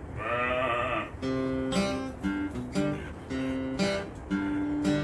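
Background music of a plucked acoustic guitar, steady picked notes in short phrases. In the first second a short wavering call stands out over the music.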